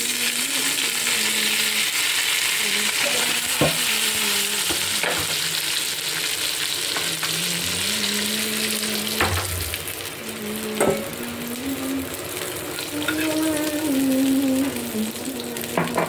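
Hilsa fish pieces sizzling in hot mustard oil in a pan, with a few sharp knocks of a spatula against the pan. About ten seconds in the sizzle grows quieter as liquid is poured in for the curd gravy.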